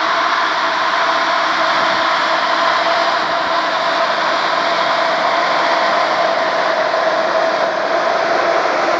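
Diesel engine of a Logset 5F GT forestry forwarder running steadily as the machine drives along a dirt track, a constant drone with a steady whine on top.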